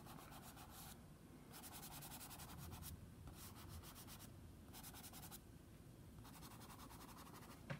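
Red soft chalk pastel stick rubbed over toned gray drawing paper: a faint, dry scratching of quick back-and-forth strokes that comes in several runs with short pauses between.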